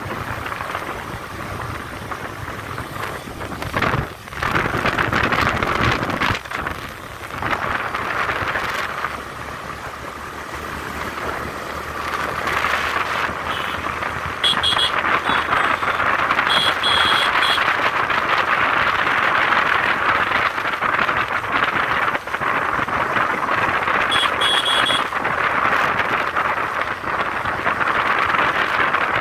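A motorcycle at speed on an open road: a steady rush of wind and road noise. Short runs of high electronic beeping cut in three times: about halfway through, shortly after, and again a few seconds before the end.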